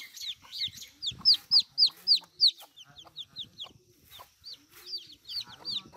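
Baby chicks peeping: a rapid string of short, high chirps that each slide downward, about four a second. They are loudest in the first half and then continue more softly.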